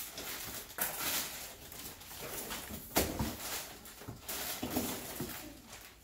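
Plastic packaging crinkling and cardboard rustling as stainless cookware and its glass lid are unpacked from the box, with a sharp knock about three seconds in.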